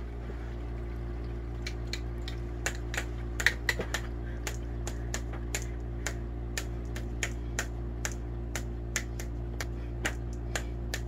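Irregular light tapping clicks, a few a second, over a steady low hum.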